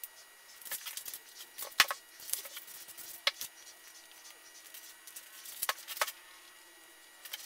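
Hands at work on a bench: large shears snipping through a clear plastic pattern sheet, then scattered knocks and rustles as the plastic and a foam-covered seat pan are handled, over a faint steady hum.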